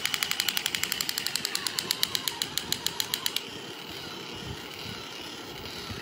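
Crawling Captain America toy soldier's electronic machine-gun sound effect: a fast, even rattle of about nine shots a second that cuts off suddenly about three and a half seconds in, leaving a quieter steady whirr of its motor.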